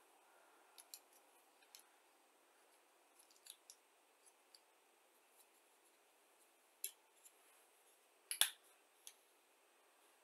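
Faint, scattered clicks and taps of hard styrene plastic model kit parts (fuselage halves and parts on the sprue) knocking together as they are handled, with two louder clicks about seven and eight and a half seconds in.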